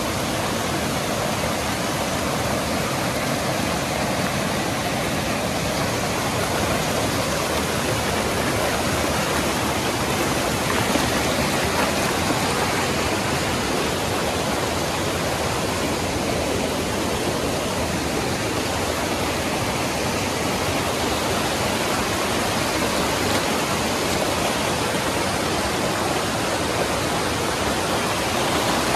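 Loud, steady rushing of water with no change in level.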